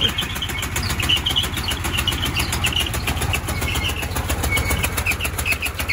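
Golf cart's swapped-in gasoline engine running steadily at a low speed, with an even, rapid firing pulse.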